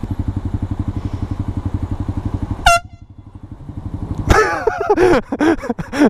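Motorcycle engine idling with an even throb, cut by one very short toot of a handlebar-mounted canned marine air horn about two and a half seconds in. From about four seconds in, loud, chopped air horn blasts over the engine as the bike moves off.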